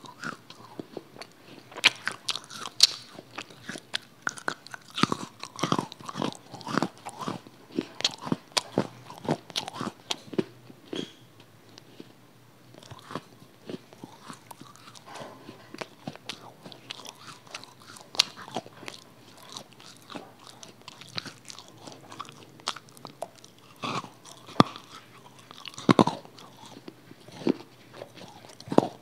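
Close-miked mouth sounds of crunching and chewing: sharp, irregular crunches and smacks several times a second, with short pauses between bursts. The pieces on the plate look like modelling-clay pretend food, so this is ASMR fake eating made with the mouth rather than real food being chewed.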